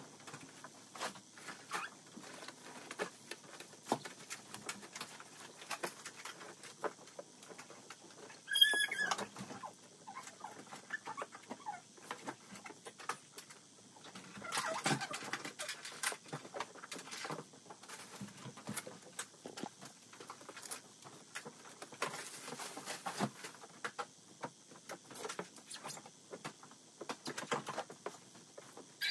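Clothes being handled and folded by hand: soft fabric rustling and small taps and clicks, with a brief high squeak about nine seconds in.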